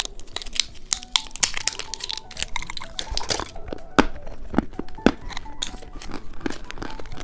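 A lollipop's wrapper being torn open and crinkled: a busy run of irregular crackles and sharp snaps.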